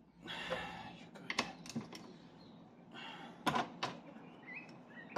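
Hand tools being handled: a few sharp metallic clicks and clinks with short rasping scrapes in between.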